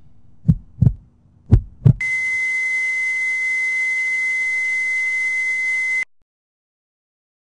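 Heartbeat sound effect: two lub-dub double thumps, then a steady high-pitched electronic tone, the heart-monitor flatline, held about four seconds over a hiss before it cuts off suddenly.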